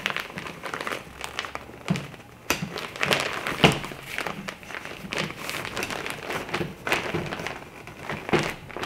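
Crinkly silver reflector fabric rustling as a tensioning rod is fed through its edge pocket, with irregular light taps and knocks from the rod.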